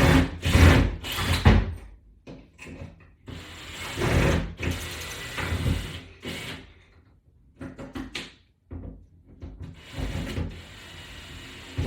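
Toggle-bolt mounting hardware being worked against a wall-mounted bar, heard as irregular bursts of scraping and knocking a second or so long with short pauses between; the loudest comes in the first second and a half.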